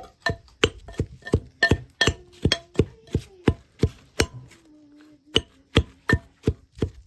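Pestle pounding batuk batter in an okhli mortar: hard, ringing strikes, nearly three a second, with a short pause about four seconds in.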